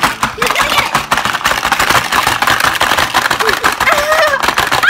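Hungry Hungry Hippos game in play: the plastic hippo levers are pounded over and over, so the hippo heads snap out and marbles rattle across the board in a fast, continuous clatter. Voices call out briefly near the end.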